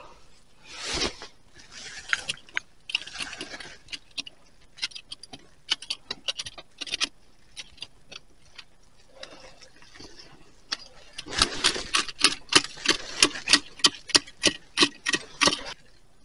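Dry leaf litter crackling and soil being scraped in a series of irregular clicks and rustles, sparse at first and coming thick and fast in the last few seconds.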